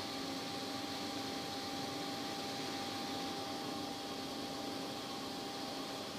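Steady hum and hiss of a large steel factory hall, with a few constant tones, typical of running wall exhaust fans and ventilation.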